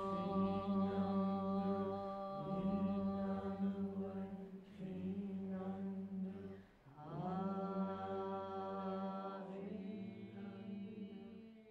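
A woman's voice chanting in long, steady held notes, each about two seconds, with short breaks between them for breath.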